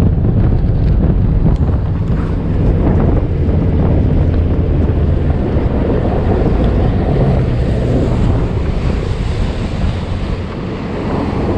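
Bass boat running fast across open water: heavy wind buffeting on the microphone over the steady run of the outboard and the hull slapping through the water.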